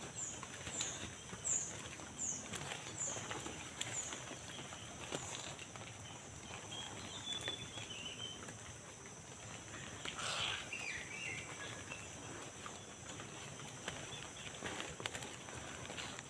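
Footsteps walking along a muddy, rocky dirt road. A steady high-pitched hum runs underneath, with a string of short falling chirps, about two a second, during the first few seconds.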